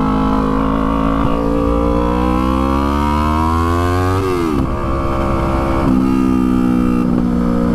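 Yamaha R3's parallel-twin engine running on the road. Its pitch climbs steadily for a couple of seconds, drops sharply about four seconds in, then holds steady.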